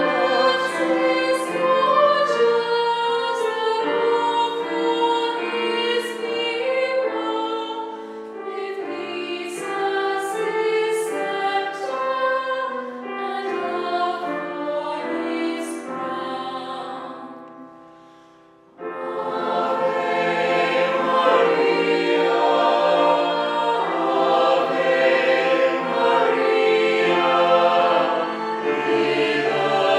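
Voices singing a choral piece in parts. About two-thirds of the way through the singing fades away, then starts again abruptly and louder a moment later.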